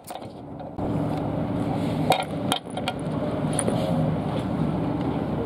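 Diesel railcar engine idling with a steady low hum inside the car. There are a couple of sharp knocks from the camera being handled about two seconds in.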